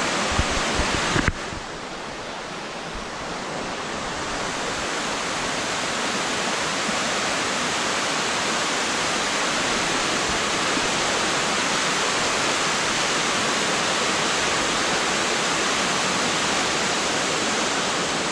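Waterfall, the steady rush of falling water. In the first second there are a few low bumps; then the rush drops suddenly and swells back to full strength over the next few seconds.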